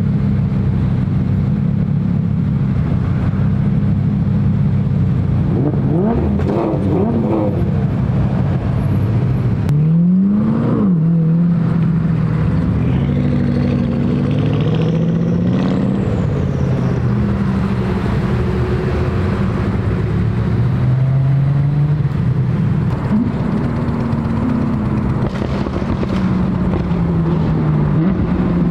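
Car engines revving and accelerating as cars drive past one after another, each engine's pitch rising and then falling away.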